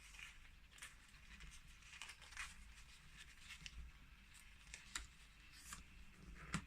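Near silence with a few faint, short taps and rustles of paper being handled.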